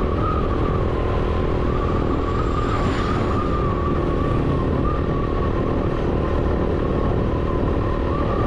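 Vehicle engine running steadily with road noise while driving along, with a wavering whine over a low rumble.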